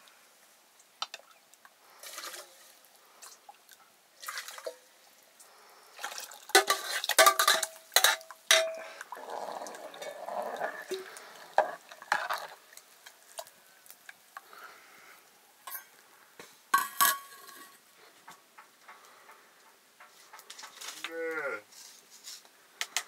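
Metal utensils clanking and scraping against a cooking pot, in irregular bursts with the loudest clatter about a third of the way in. Near the end comes a short call that falls in pitch.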